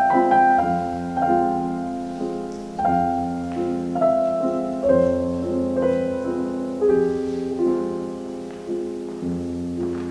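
Slow solo piano music, single notes and chords struck about once or twice a second and left to ring.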